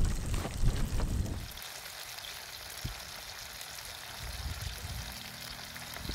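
Chicken breast frying in oil in a Trangia sauté pan: a steady sizzling hiss. Wind rumbles on the microphone for about the first second and a half, then drops away.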